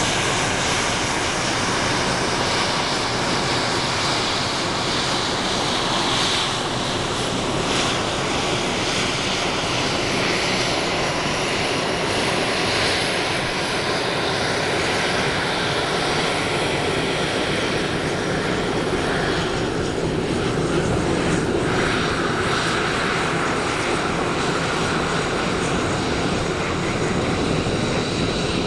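Boeing 737's twin turbofan engines running at taxi power as the jet rolls along the apron: a steady jet noise with a thin high whine.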